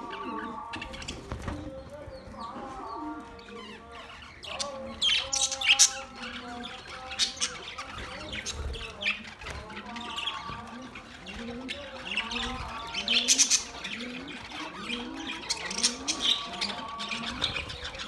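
A flock of budgerigars chattering: busy warbling with sharp chirps and squawks, loudest in bursts about five seconds and thirteen seconds in. In the second half a low call repeats about twice a second underneath.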